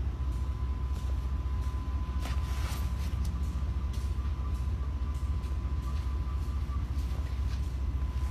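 Steady low rumble with a faint, thin steady hum above it and a few light clicks.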